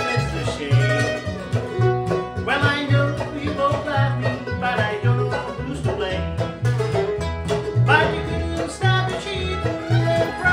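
Bluegrass band playing: banjo, mandolin, acoustic guitar and upright bass, with the bass pulsing on a steady beat.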